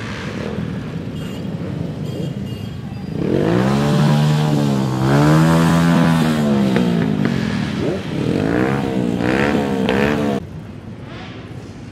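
Motorcycles riding past in a parade, with one engine revved up and down several times. The revving is the loudest sound and stops suddenly near the end, leaving the steady noise of the street and crowd.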